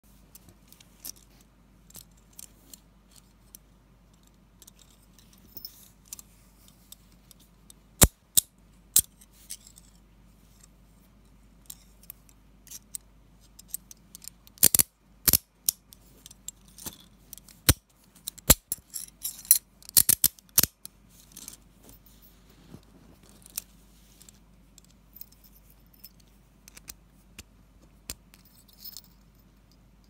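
Steel chain-linked handcuffs being handled: scattered sharp metallic clicks and rattles, clustered most thickly through the middle.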